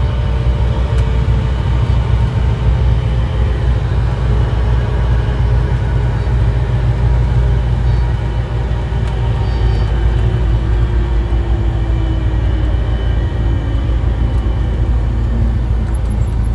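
Steady low rumble of a motor vehicle running, with a faint tone that falls slowly in pitch about two thirds of the way through.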